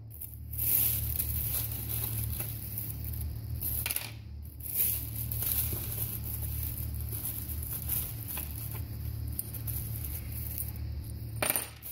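A plastic bag rustling and crinkling as a hand rummages through it for washers.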